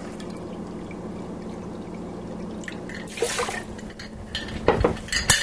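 Water being poured from a measuring cup into a pot of rice, a faint steady pour, followed near the end by a short rustle and a few knocks as things are set down on the counter.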